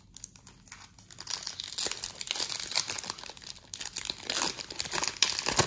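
Foil wrapper of a hockey trading-card pack being crinkled and torn open by hand: a dense crackle of rustling foil starting about a second in.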